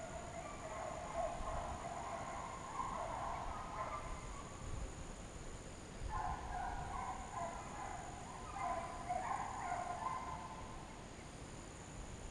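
A pack of deer hounds baying in chorus, several voices overlapping in two bouts, one at the start and another from about six seconds in: the pack is running a trail, which the hunter guesses is a coyote.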